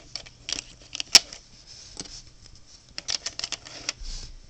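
Plastic pieces of a DIY Rubik's cube clicking and knocking as corner pieces are dropped into the half-built cube, in irregular sharp clicks with the loudest about a second in and a quick run of clicks around three seconds.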